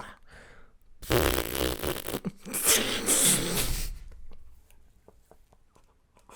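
A long, raspy fart noise made as a cartoon foley effect, lasting about three seconds and starting about a second in, followed by a few faint clicks.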